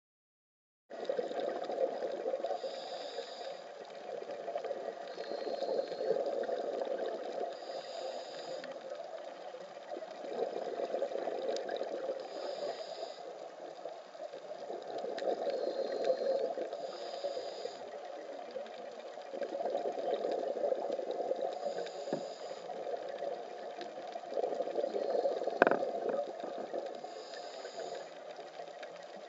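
Underwater scuba sound: a diver's regulator breathing, with exhaled bubbles bubbling in swells every four to five seconds and a short hiss with each breath. It starts about a second in, and one sharp click comes near the end.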